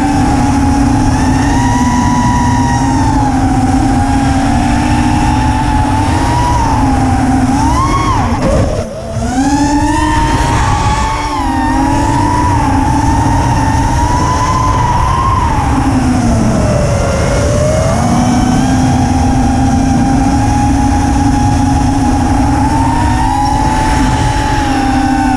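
FPV quadcopter's brushless motors and propellers whining, picked up by the GoPro mounted on the quad, over a steady rumble of wind and frame vibration. The whine rises and falls in pitch with the throttle; about nine seconds in it drops away briefly and climbs back, and it dips again around sixteen seconds.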